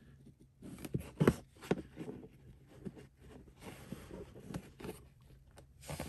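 Plastic pry tool knocking and scraping against a Tesla Model 3's interior plastic trim panel as it is worked into the gap: a quick run of sharp clicks and knocks about a second in, then softer ticks and scraping. The panel's clips are holding very tight and have not released.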